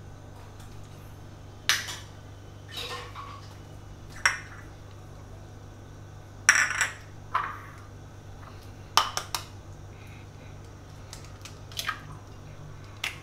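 Small bowls and utensils clinking against a stainless steel mixing bowl as ingredients are tipped in, a string of sharp, irregular clinks with an egg cracked into the bowl along the way.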